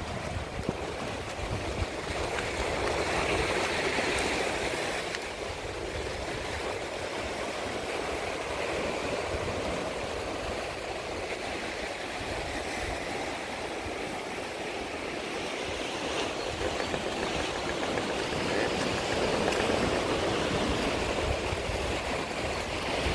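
Sea water washing and surging among shore rocks, a steady rushing hiss that swells louder twice, a few seconds in and again near the end.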